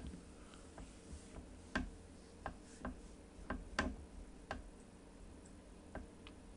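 About ten light, sharp clicks at uneven intervals, over a faint steady electrical hum.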